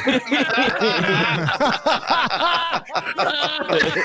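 Laughter: rapid, overlapping snickering and chuckling throughout.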